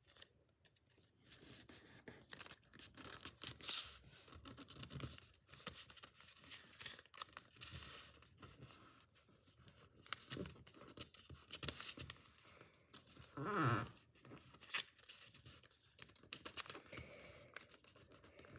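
Origami paper being folded and creased by hand: irregular rustling, crinkling and scratching as fingers press and slide along the folds. One brief, louder pitched sound about two-thirds of the way through.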